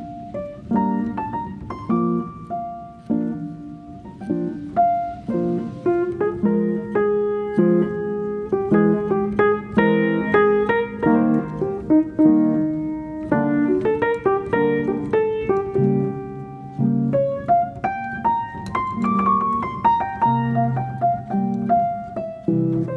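Solo piano music: a steady run of single notes and chords, each struck and then fading.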